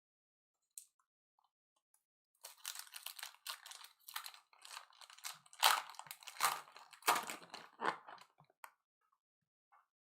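Foil wrapper of a Panini Mosaic football card pack being torn open and crinkled, a run of crackling rustles for about six seconds.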